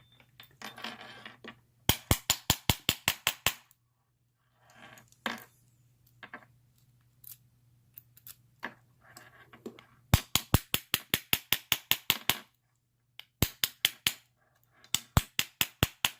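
Bump key in a Master Lock No. 5 padlock being rapped with an improvised bump hammer to jar the pin tumblers. There are four runs of quick sharp taps, about seven a second, the third run short, with softer rattling of key and lock between runs.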